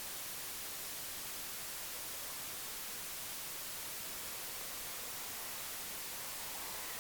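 Steady, even hiss like static, strongest in the high frequencies, with no distinct sounds standing out of it.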